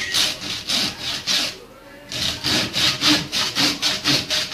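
A saw cutting through a fish in quick back-and-forth strokes, about four a second, with a short break about halfway through.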